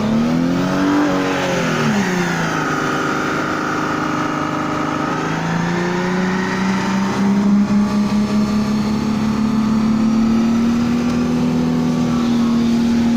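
Holden VY Commodore's 3.8-litre V6 revving hard through a burnout, spinning the wet rear tyres. The revs climb and dip over the first two seconds, then rise again and are held high, creeping slowly upward.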